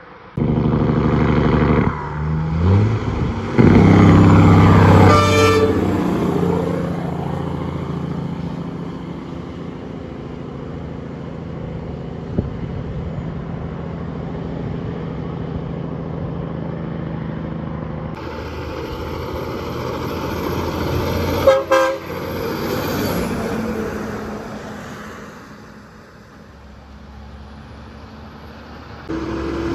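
Trucks passing on a road and sounding their horns: a loud multi-tone horn blast in the first few seconds whose pitch falls as the truck goes by, then steady traffic running past, a sharp crack about 21 seconds in, and another horn starting near the end.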